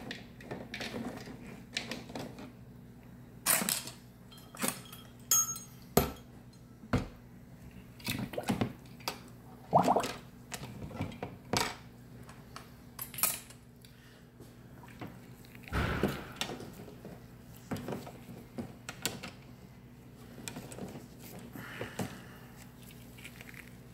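Scattered metal clinks and knocks from wire coat hangers and aluminum parts being handled and lowered into a plastic bin of caustic solution, roughly a dozen sharp strikes at uneven intervals, over a faint steady low hum.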